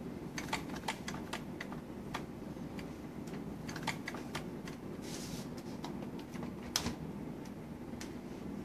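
Homemade soda-can gamma Stirling engine, its CD flywheel started by hand, running with light irregular clicking and ticking from its wire crank and linkages over a steady low hum.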